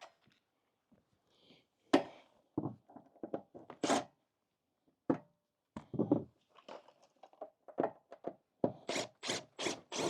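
Wooden deck boards being pried up with a crowbar: irregular wooden knocks and thunks, then a quick run of about six strikes near the end.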